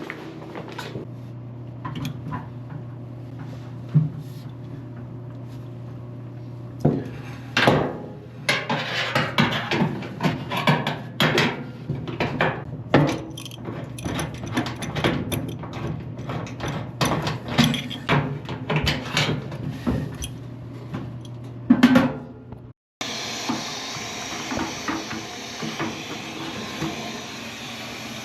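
LG clothes dryer running with a steady low hum and irregular knocking and clunking, busiest in the middle. After a short break near the end the knocks stop and a steady rushing noise takes over.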